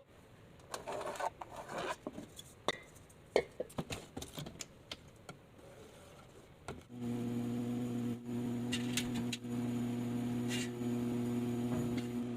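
Small parts being handled, with scattered clicks, scrapes and rubs. About seven seconds in, a steady electric motor hum starts and keeps running.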